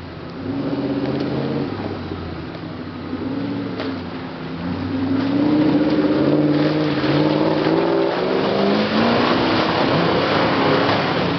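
A Range Rover's V8 engine revs up and down under load as it pushes through deep mud, getting louder about five seconds in as it comes closer, with its tyres churning the mud.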